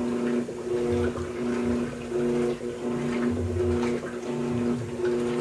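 Electrolux LT13B top-load washing machine agitating: the motor hums in short strokes, switching about every half second as the agitator reverses back and forth, with water sloshing in the tub.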